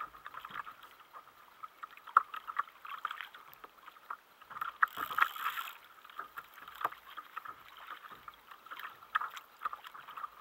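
Small waves lapping against a plastic sit-on-top kayak's hull in irregular little splashes and knocks, with a brief hiss about five seconds in.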